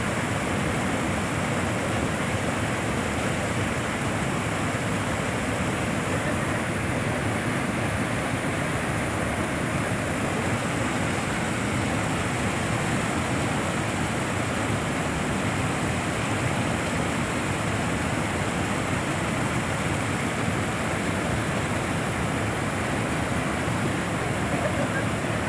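River in flood, its swollen water rushing steadily with an even, unbroken noise.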